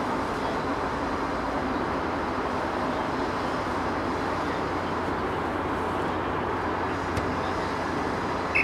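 Steady wind noise on the camera microphone across an open rugby pitch. A faint thud about seven seconds in, the conversion kick, then a brief sharp blast on the referee's whistle near the end as he signals the kick.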